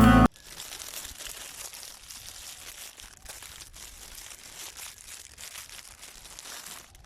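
Background music cuts off just after the start, followed by faint, irregular crackling and rustling.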